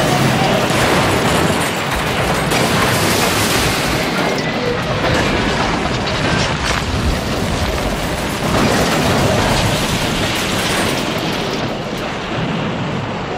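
Dubbed train-wreck sound effects after two steam locomotives collide head-on: a dense, steady rumble of crashing metal and burning wreckage, with scattered heavier thuds, easing off near the end.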